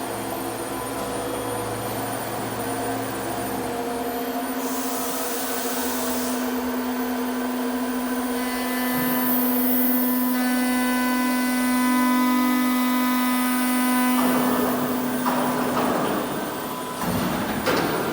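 CNC aluminium profile machining centre running with a steady machine whine; a cluster of higher steady tones joins it from about halfway and drops out, then rough noise rises and falls twice near the end.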